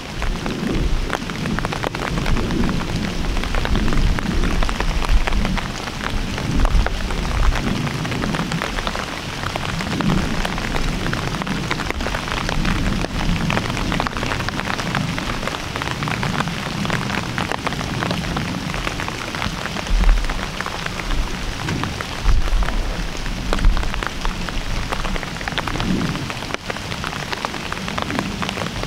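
Steady rain pattering, many fine drops merging into a continuous hiss, with an uneven low rumble underneath that swells briefly now and then.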